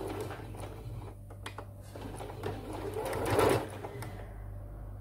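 Electric sewing machine running, sewing the locking stitches at the end of a seam. It is loudest for a moment about three and a half seconds in and quieter near the end.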